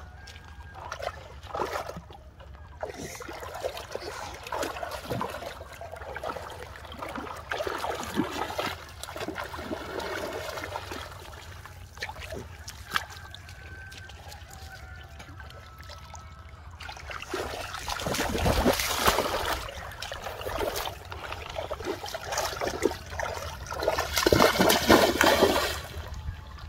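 Shallow river water splashing and trickling as a child wades and gropes through it with his hands, with two louder bouts of heavy splashing, one about two-thirds of the way through and one near the end.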